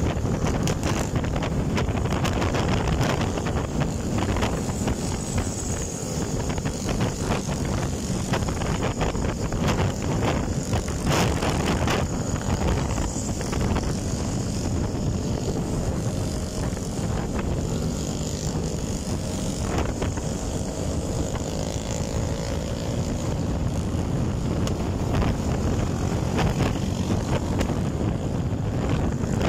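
Heavy wind noise buffeting the microphone of a camera on a moving motorcycle, over the engines of a group of motorcycles cruising, with a faint engine note rising and falling in the second half.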